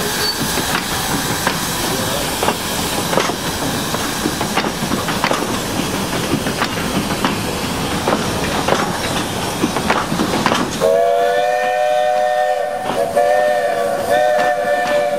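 Steam locomotive departing with its carriages: a steady hiss of steam with irregular clicks from the wheels on the track. About eleven seconds in, its steam whistle blows a steady blast, briefly breaks off, then sounds again.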